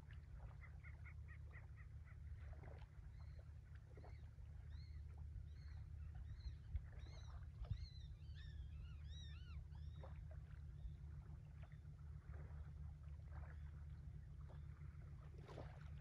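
Faint shore ambience of a distant ship's engine droning low and steady, with small birds singing over it. The birdsong is a quick run of repeated notes at the start, then a busy spell of many short, arched chirps in the middle, and a few scattered shorter calls near the end.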